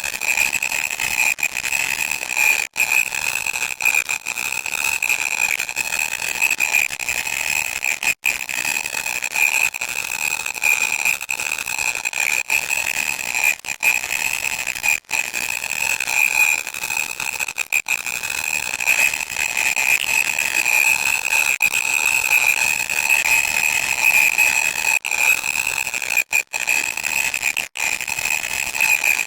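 Loud static hiss with a shrill, steady whistling tone running through it, broken by a few brief dropouts.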